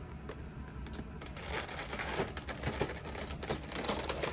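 Clear plastic organizer trays and tiny plastic miniature pieces clicking and rattling under rummaging fingers, a run of irregular sharp clicks that starts about a second in and grows busier.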